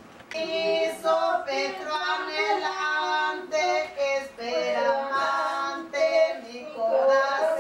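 Women's and girls' voices singing a song together, with long held notes that start about a third of a second in.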